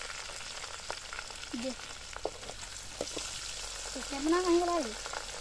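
Food sizzling steadily in hot oil in a metal pan, with a few clinks and scrapes of a steel ladle stirring it. A voice calls out briefly near the end.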